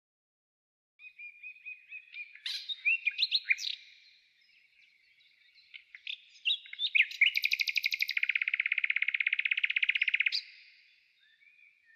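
Small songbird singing: a string of quick high chirps that grow louder, then after a pause of about two seconds a second phrase of chirps running into a long, rapid trill that stops abruptly.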